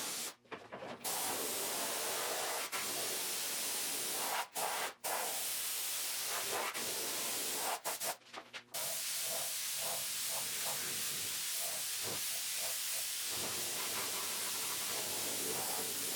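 Small touch-up spray gun spraying primer onto bare-metal car doors: a steady hiss of atomising air and paint, broken by a few short pauses where the trigger is let go.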